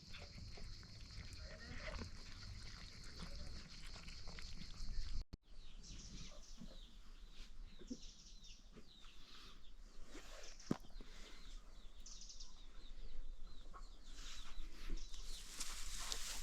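Chickens clucking quietly, with scattered small clicks around them. A brief dropout comes about five seconds in, and the sound grows busier toward the end.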